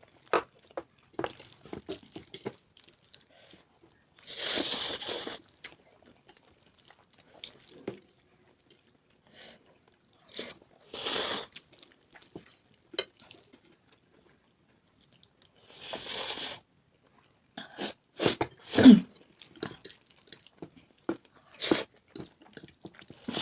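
Close-up eating of spicy instant noodles: chewing with small clicks, and three loud, hissy slurps of about a second each, near four and a half, eleven and sixteen seconds in. A short, sharp vocal sound near nineteen seconds is the loudest moment.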